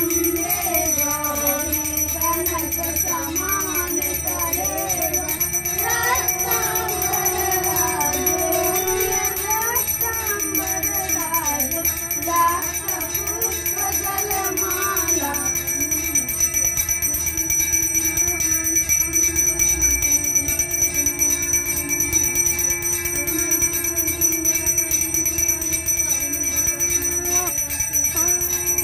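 A small brass puja hand bell rung rapidly and continuously during aarti, its high ringing tones steady throughout. For about the first fifteen seconds devotional singing wavers over the bell.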